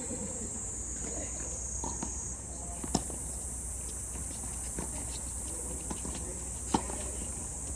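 Two sharp tennis ball strikes off racket strings, a few seconds apart, over a steady high-pitched insect chorus.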